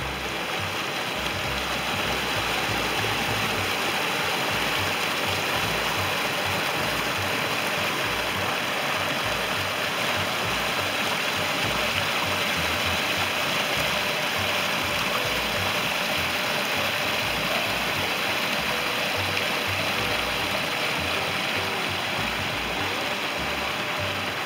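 Creek water pouring down a small cascade over slate ledges: a steady, close rushing and splashing.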